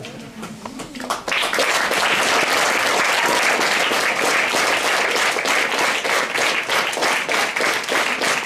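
Crowd applause in a theatre: clapping starts abruptly about a second in and continues, dense and steady.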